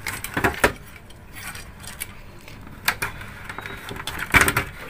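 Handling noise from work on an opened CRT TV chassis: a few sharp clicks and light metallic clinks, several close together near the start, one about three seconds in, and the loudest group near the end.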